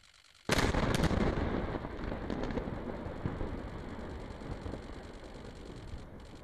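Demolition explosive charges going off: about half a second in, a sudden loud blast with a few sharp cracks, then a long rumble that slowly fades.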